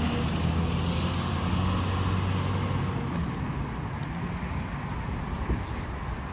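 Garbage truck diesel engine running with a steady low drone that eases off about halfway through, and a short knock near the end.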